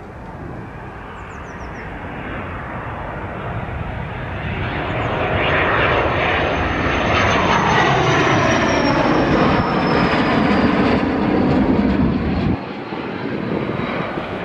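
Fighter jet's engine roaring as the jet flies low past, building up to a loud peak and then falling in pitch as it goes by, with a high whine sliding down. The sound drops suddenly near the end to a quieter jet noise.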